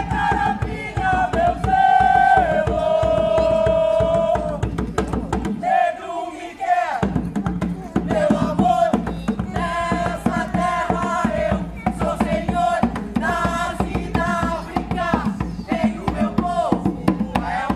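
Voices chanting and singing over drumming, with held notes early on and short repeated chanted phrases later. The drumming breaks off briefly about six seconds in.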